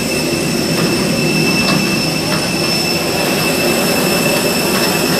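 Steady rumble with a constant high whine from a parked jet airliner, heard inside its cabin.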